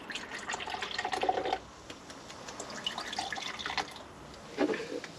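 Grape-flavoured Red Bull being poured from the can into cups, splashing and fizzing, in about three short pours.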